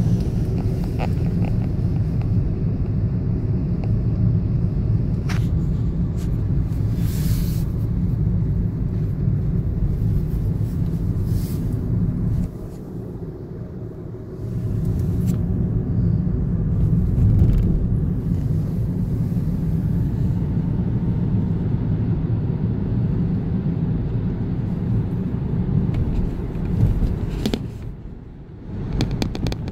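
Car driving in city traffic, heard from inside the cabin: a steady low rumble of engine and tyre noise, easing off for a couple of seconds a little before the middle and again briefly near the end.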